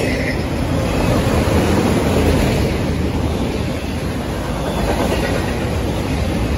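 Freight train of autorack cars rolling past close by: a steady rumble of steel wheels on the rails.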